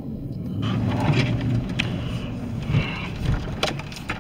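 Car moving slowly, engine and road noise heard inside the cabin. The noise gets fuller about half a second in, and there are a few sharp clicks near the end.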